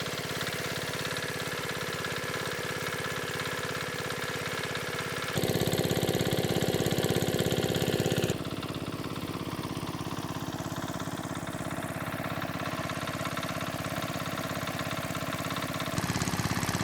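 A small engine running steadily with an even, rapid beat. It gets abruptly louder about five seconds in, drops back about three seconds later, and is louder again near the end.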